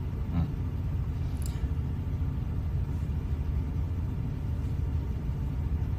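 Steady low rumble of background noise picked up by a phone microphone, with no clear events in it.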